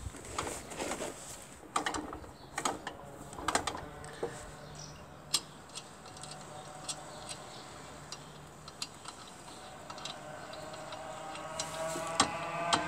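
Scattered light clicks and taps from hands handling a Motobécane D45 motorcycle engine, thickest in the first few seconds and then sparse single ticks. A faint motor drone builds up over the last few seconds.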